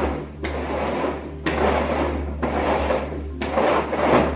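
Upturned bowls slid and shuffled across a wooden tabletop: a scraping rub that comes in swishes about once a second, over a steady low hum.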